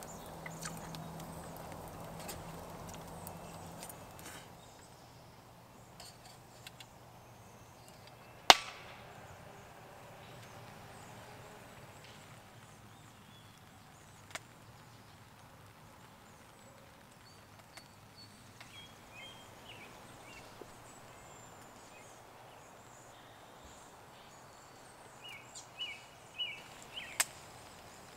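Outdoor ambience with a low steady hum that stops about four seconds in. A single sharp, loud click comes about eight seconds in, and a few short high chirps and another click come near the end.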